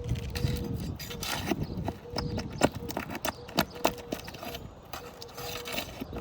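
Hand tools knocking, clicking and scraping on asphalt roof shingles as nails are pulled and a damaged shingle is worked loose, with a few sharp clicks standing out in the middle.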